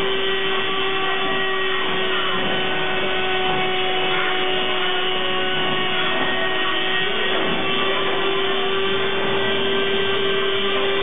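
Rotary tool (motor tool) on a small CNC router, spinning steadily as its bit routes a board: a constant machine whine, with fainter tones gliding up and down midway.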